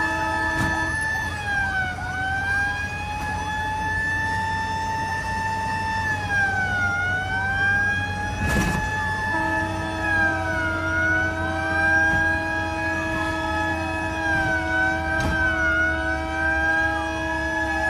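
Fire engine sirens wailing, several at once, their pitch dipping and rising slowly. A steady multi-tone horn sounds over them, cutting off about a second in and starting again about nine seconds in.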